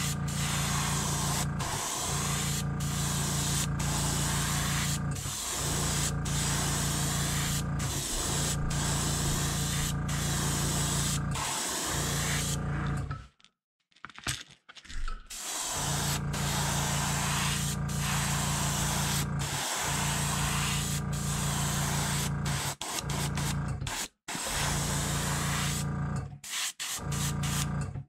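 Airbrush spraying paint: a steady hiss of air with a low hum beneath it, broken by several brief cut-outs and a longer pause about halfway through.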